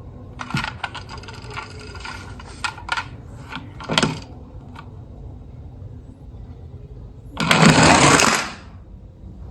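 Small hard toy pieces clicking and clattering over the first four seconds, then a noisy burst lasting about a second near the end.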